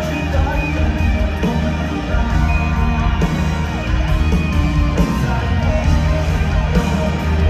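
A live band playing a pop-rock song through an arena's sound system, heard from among the audience, with crowd noise in the mix.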